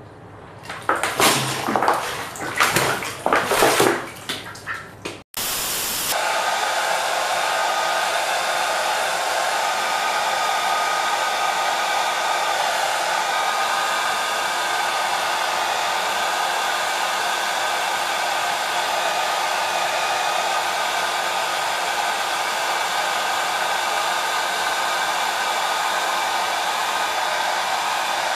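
A white domestic duck splashing in a tub of water, with several loud irregular splashes over the first few seconds. After a brief gap, a handheld hair dryer blows steadily for the rest of the time, a loud rushing whir with a steady hum in it.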